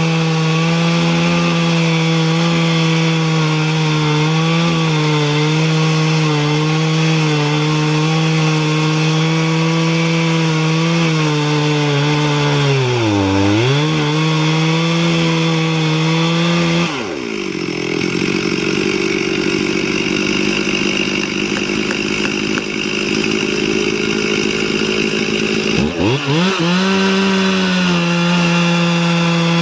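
Stihl MS 440 two-stroke chainsaw running at full throttle in an Alaskan chainsaw mill, ripping lengthwise through a southern yellow pine log. The engine note holds steady, dipping in pitch and recovering a couple of times as the chain takes load.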